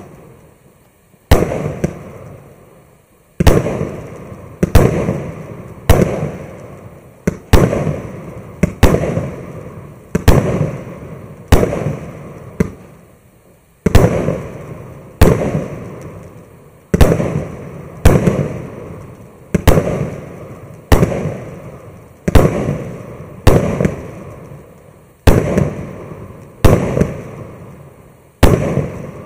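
A MAXSEM MC116 "Scintillant" consumer fireworks cake, 1-inch calibre and 64 shots, firing shots in sequence. A sharp report comes about every one to one and a half seconds, around twenty in all, each followed by a fading rumble as the shells burst into glittering stars.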